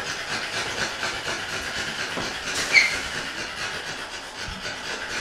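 Steady hiss throughout, with one brief high squeak a little before three seconds in.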